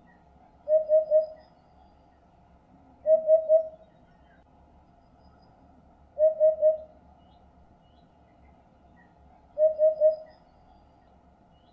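Eurasian hoopoe singing its 'oop-oop-oop' song: four groups of three low, evenly spaced notes, a group about every three seconds.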